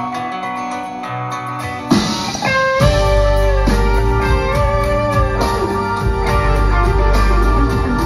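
Live rock band playing an instrumental break: soft sustained chords, then about two seconds in a drum hit brings in the full band with bass and drums, and an electric guitar plays a lead line with bent notes.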